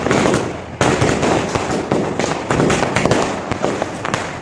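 Many Diwali firecrackers going off at once: a dense crackle of small bangs, growing louder about a second in.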